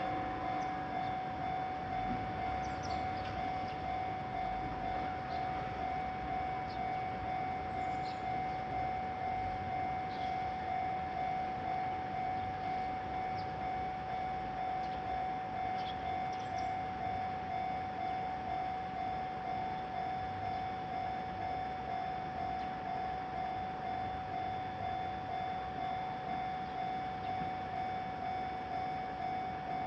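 Japanese railroad crossing's electronic warning bell ringing in a steady, evenly repeating pattern, the signal that a train is approaching or passing.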